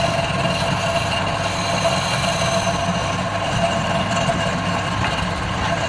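Wood lathe running steadily, its motor giving a constant hum with a steady whine over a broad rushing noise.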